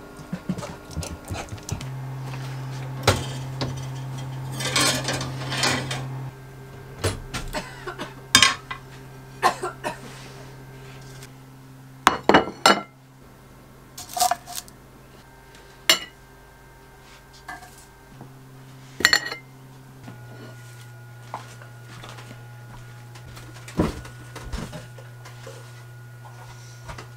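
Kitchen work: pots, pans and cutlery clinking and knocking in scattered strokes, over a steady low hum.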